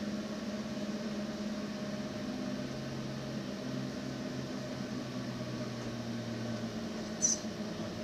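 Steady low hum of a Redbird FMX full-motion flight simulator cockpit, with a lower tone rising in for a few seconds in the middle and a brief hiss near the end.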